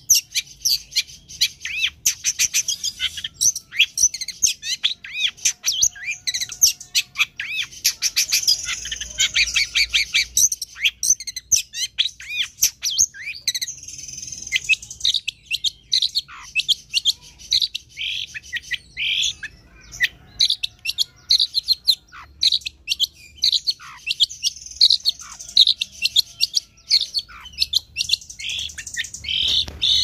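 Long-tailed shrike singing: a fast, varied, nearly unbroken run of high chirps, trills and rapid repeated notes, the mimicking song of this species.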